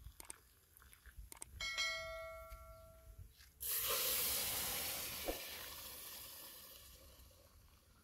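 A short metallic ring fading over about a second and a half. Then a cup of hot boiled water poured into an aluminium pot of rice: a sudden rushing splash that fades away over the next few seconds.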